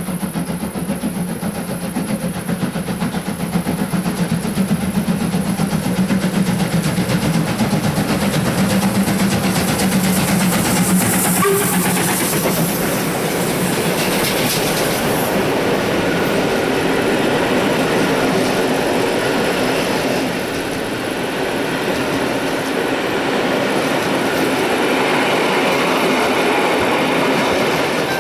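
Class 01 express steam locomotive hauling a passenger train close by, getting louder as it approaches over the first few seconds. The coaches then roll past with wheel clatter on the rails.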